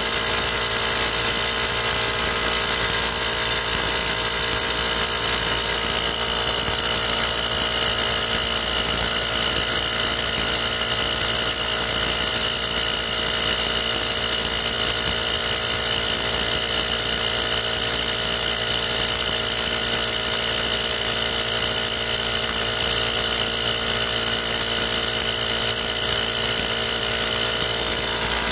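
TOTAL TACLI2001 20V cordless single-piston air compressor running steadily, pumping air into a car tyre that started out completely flat.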